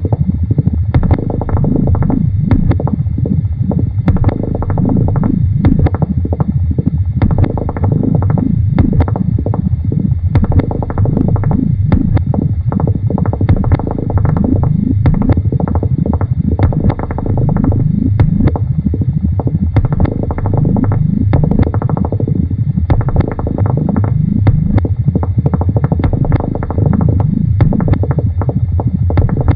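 Experimental electronic tape music: a dense low rumble full of rapid clicks and many short pitch glides that keep sweeping upward.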